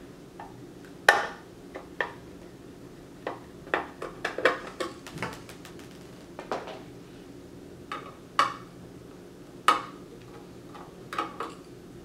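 A dozen or so scattered metallic clicks and clinks from a screwdriver working loose the rear case screws of a Netgear ReadyNAS, with loose screws and the tool set down on a glass tabletop. The clicks are sharp and irregular, and the loudest come about a second in and again around eight to ten seconds in.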